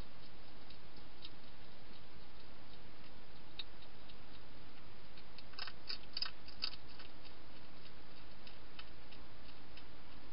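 Wild hedgehog chewing dry food: scattered small crunching clicks, with a quick run of louder crunches a little past halfway, over a steady hiss.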